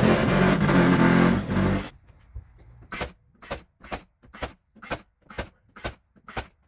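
A power saw running under load as it cuts, cutting off about two seconds in. Then a steady run of sharp, evenly spaced knocks follows, about two a second.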